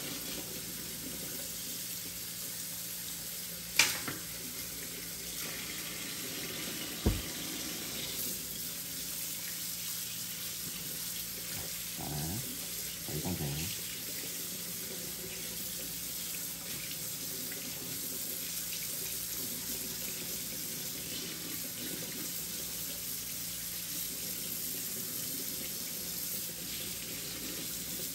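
Tap water running steadily into a kitchen sink as raw pork hocks are rinsed, with two sharp knocks about four and seven seconds in.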